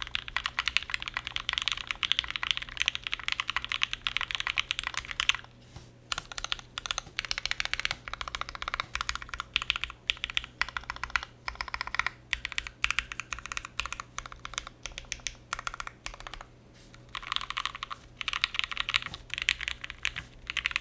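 Fast typing on an ai03 Meridian mechanical keyboard: lubed and filmed Marshmallow switches in a top-mount aluminium plate, under GMK keycaps, giving a steady run of rapid keystroke clacks. The typing pauses briefly twice, about five and a half and sixteen and a half seconds in.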